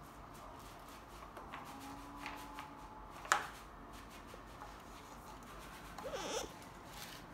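Quiet, faint handling sounds of a small child working a paint roller against a wall, with one sharp click about a third of the way in and a short wavering squeak near the end.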